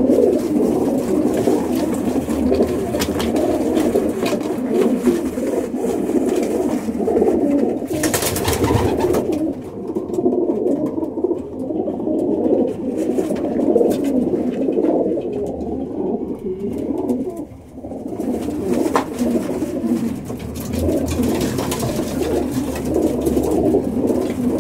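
Racing pigeons cooing continuously in a loft, many birds overlapping. A short burst of noise comes about eight seconds in.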